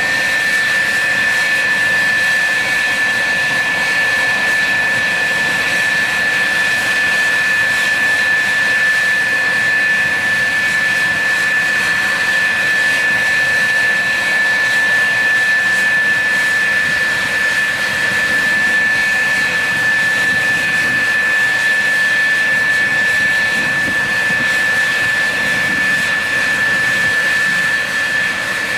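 F-4F Phantom II's J79 turbojet engine running at idle after its cartridge start: a loud, steady jet whine at one high pitch over a rushing noise.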